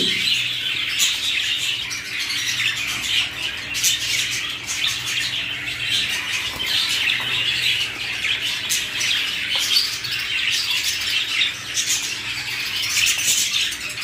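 Many small cage birds chirping and chattering together in a dense, continuous twitter, with a few sharp clicks mixed in.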